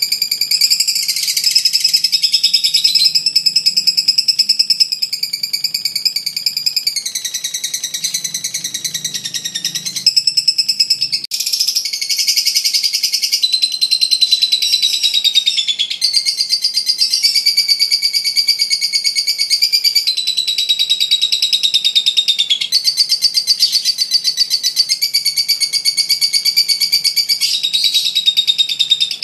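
Masked lovebird (blue colour form) giving the long 'ngekek' song prized in competition lovebirds: a shrill, very rapid chattering trill held for several seconds at a stretch. It pauses or breaks briefly a few times, then goes straight on.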